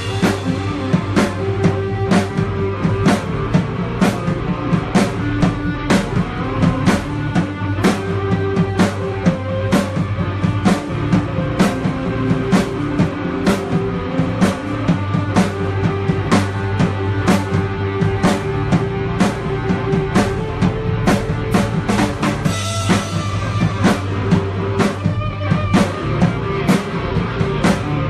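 A rock band playing live without vocals: a drum kit keeps a steady beat of about two hits a second under sustained guitar and bass notes.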